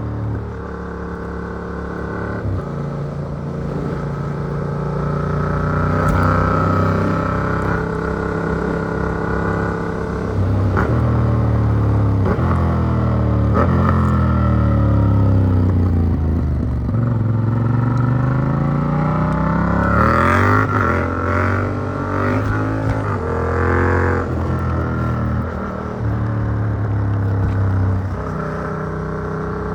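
Yamaha MT-07's parallel-twin engine through an Arrow Works exhaust with dB killer, revving up through the gears under hard acceleration. About halfway through the revs fall away and then climb again, and the later part has a run of quick rev changes.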